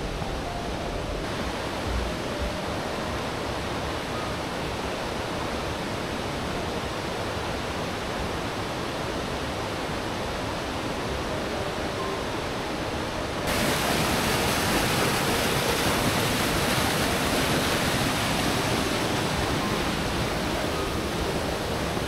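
Steady rushing of a mountain stream's water, which jumps suddenly louder and brighter about thirteen seconds in.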